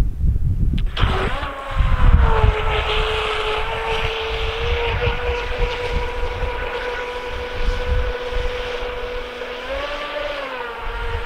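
Brushless electric motor of a WL Toys WL915 RC speedboat whining at a steady pitch as the boat runs across the water. The whine comes in about a second in and rises and falls briefly near the end as the throttle changes. Wind rumbles on the microphone throughout.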